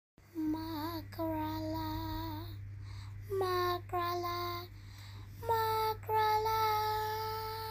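A young girl singing three short phrases of long held notes, each phrase pitched higher than the last, the final note held for about two seconds. A steady low hum runs underneath.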